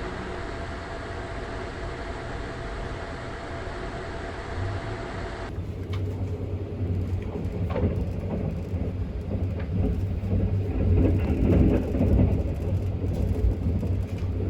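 285-series sleeper train running at speed, heard from on board as a steady rumble with a faint whine. About five seconds in the sound cuts to a louder, deeper rumble with scattered clicks and knocks.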